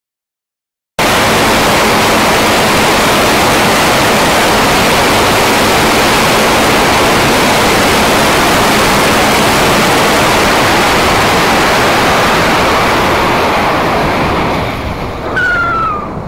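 Loud, steady wind rush over an action camera's microphone on a motorcycle riding at speed, starting suddenly about a second in. Near the end the rush eases and a short falling whine sounds.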